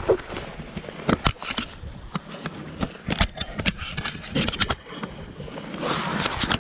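Wind rumbling on the microphone, with scattered sharp clicks and scrapes.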